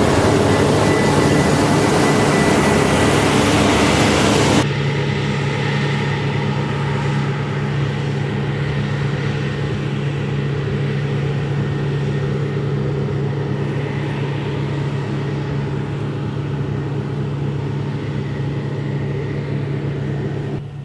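Diesel engine of heavy New Holland farm machinery running steadily. About four and a half seconds in the sound changes abruptly, from a louder, noisier running with a faint steady whistle to a quieter, even engine hum.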